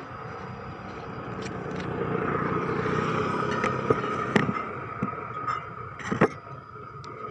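A motor vehicle passing by, its noise swelling and then fading. A few sharp knocks come in the second half.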